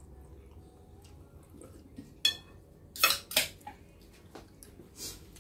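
A metal spoon clinking against a ceramic plate a few times. The loudest two clinks come close together about three seconds in, with a weaker one near the end, as the spoon is set down in the plate.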